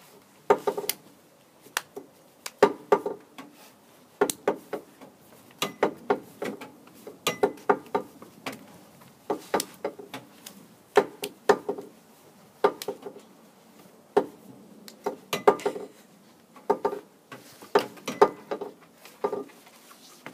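Irregular clanks and knocks, often in quick clusters of two or three, from a child banging a stick on hard objects as a makeshift percussion instrument.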